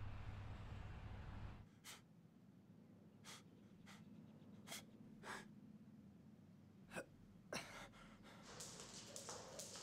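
A low steady street hum cuts off about two seconds in. Then a man's short, sharp breaths come at irregular gaps of about a second while he shadowboxes, with a longer ragged breath near the end.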